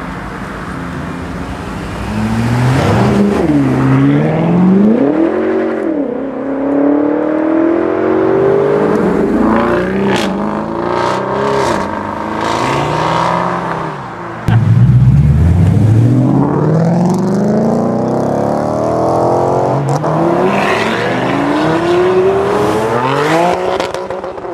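Supercar engines revving and accelerating hard. The pitch climbs and then drops at each gear change. About halfway through, a louder car starts a hard acceleration.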